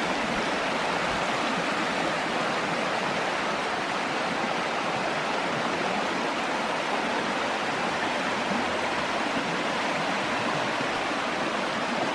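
Creek water rushing steadily over rock cascades, a constant even roar of falling water.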